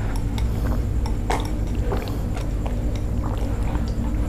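A man drinking the last of a milky agar-jelly soup straight from a ceramic bowl: small gulps and slurps with faint scattered clicks, over a steady low hum.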